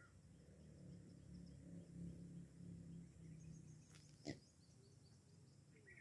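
Near silence: faint outdoor ambience with scattered faint bird chirps, and one short sharp knock a little past four seconds in.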